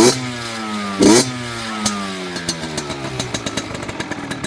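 HM Derapage RR 50's 50cc two-stroke engine through a Giannelli silencer, blipped twice in quick succession, the revs falling away after each. It then drops toward idle with an uneven popping crackle.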